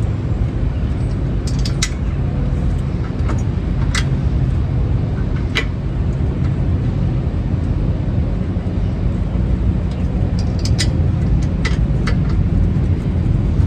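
Scattered sharp metal clinks as a rear brake caliper and hand tools are handled and fitted back over the rotor, over a steady low background noise.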